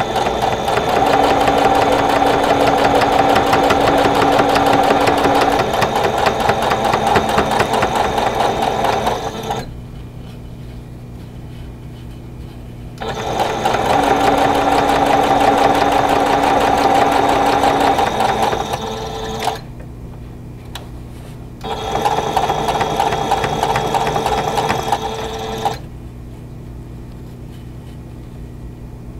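Singer sewing machine stitching a seam through pieced quilt-block fabric, running in three stretches with short stops between: a long run of about nine seconds, another of about six, then a shorter one.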